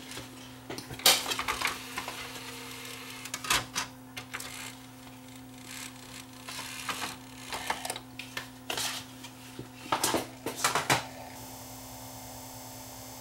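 Irregular clicks and clatter from the Panasonic DVD-S35's disc drive mechanism as it tries to read a disc, over a steady low hum. The drive's spindle motor is suspected of having gummed-up bearings. About eleven seconds in the clicking stops, leaving a steady hum with a hiss.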